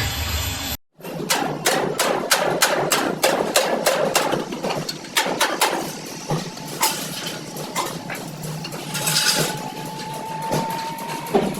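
A run of sharp knocks and taps, two or three a second, follows a brief cut. They thin out, and a steady high whine comes in near the end.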